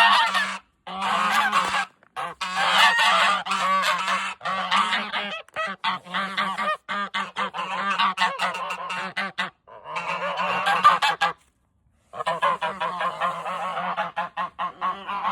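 Geese honking, many harsh calls tumbling over one another in several stretches broken by brief silent gaps.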